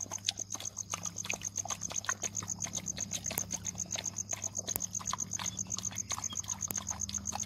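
Crickets chirping, a high note repeating in rapid, even pulses, with scattered faint clicks and a low steady hum underneath.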